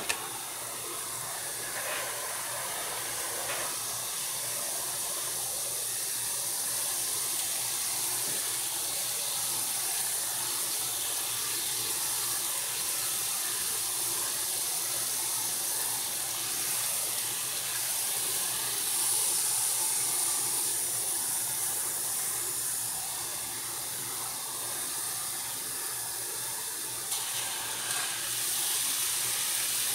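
Air-conditioner cleaning acid fizzing on an aluminium drinks can, a steady high hiss of bubbling as the acid attacks the metal. Near the end a little more liquid is poured in from a glass.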